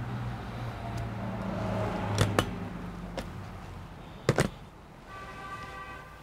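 Workshop background: a steady low hum that fades out about halfway, broken by several sharp clicks and knocks. Near the end a held electronic tone with several stacked pitches comes in.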